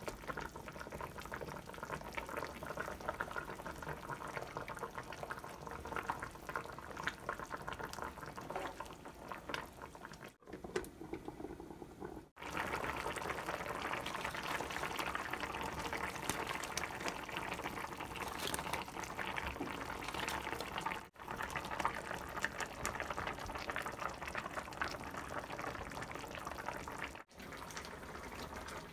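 Braising liquid of Korean beef short ribs (galbi-jjim) boiling in a shallow pot, a dense bubbling crackle. It breaks off briefly a few times and is louder after the first few seconds.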